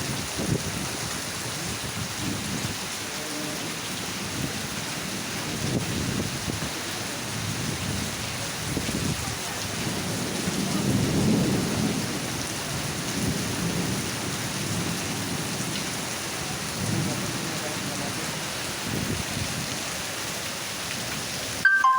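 Heavy rain pouring steadily, with irregular low rumbling gusts that swell loudest about halfway through. A brief sharp blip comes just before the end.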